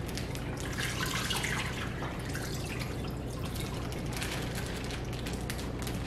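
Marinade liquid pouring and dripping from a plastic zip-top bag into an Instant Pot's stainless steel inner pot.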